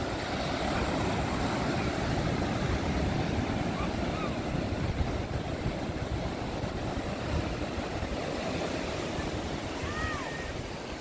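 Ocean surf breaking and washing up a sandy beach: a steady low rush of waves.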